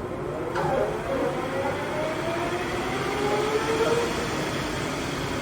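Victor gap bed engine lathe starting its spindle at the 860 RPM setting: a hiss comes in about half a second in, then the geared headstock whines and rises in pitch as the spindle comes up to speed.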